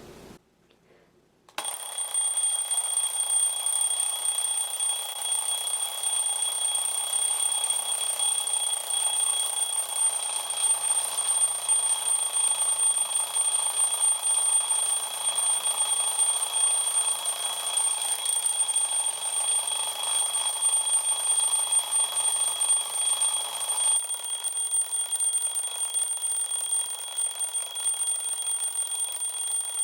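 Alarm clock ringing continuously without a break, starting about a second and a half in.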